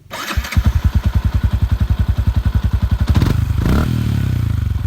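Small motorcycle engine running at a low idle with a fast, even thump of about thirteen beats a second. It is revved up briefly about three seconds in, then settles back to idle.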